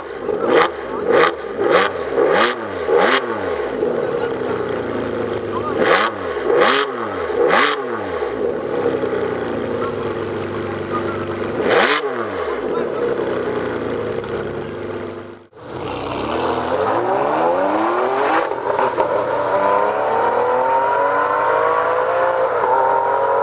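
Ferrari 599 GTB Fiorano's V12 idling and being revved in sharp blips, each rising and falling in pitch: a quick run of five, then three, then one more. After a cut, a car engine accelerating hard, its pitch climbing steadily.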